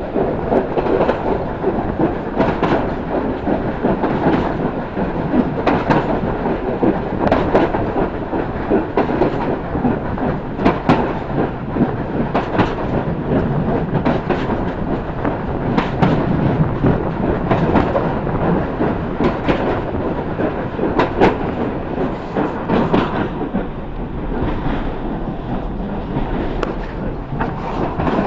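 Train carriage running along the track with a steady rumble and rattle, its wheels clacking over rail joints about every 1.7 seconds.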